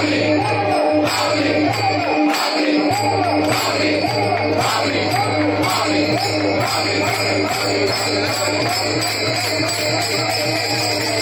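Varkari dindi bhajan music: a wavering melody over steadily jingling metal hand cymbals and regular percussive strokes, with a sustained low drone beneath.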